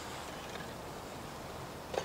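Faint, steady outdoor background hiss, with a soft tick just before the end.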